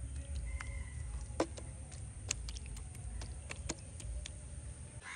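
Hands squishing chicken pieces through a thick green chilli marinade on a metal plate, a scatter of short soft clicks over a low steady rumble.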